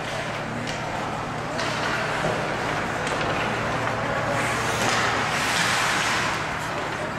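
Rink noise during ice hockey play: a steady hiss that swells about four to six seconds in, with a couple of sharp clacks about a second and a half and three seconds in, over a low steady hum.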